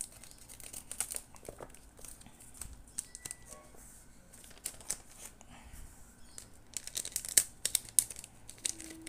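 Foil booster-card pack crinkling and crackling as it is handled and opened, with a scissor snip at the start. A dense run of crinkles comes near the end as the cards are slid out of the wrapper.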